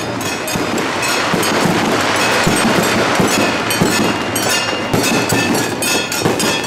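Temple procession percussion: cymbals and gongs clashing loudly in a quick, irregular beat, the strokes ringing over a dense wash of noise.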